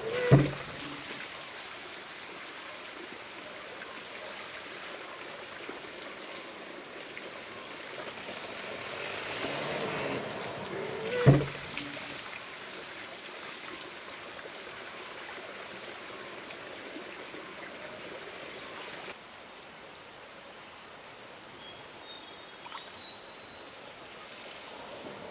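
Wooden water-powered hammer (monjolo) dropping and thudding into its mortar twice, about eleven seconds apart, each blow coming just after a rush of water spilling from its trough as the beam tips. A steady trickle of water runs under it until the sound drops to a quieter outdoor hiss near the end, with a few faint high chirps.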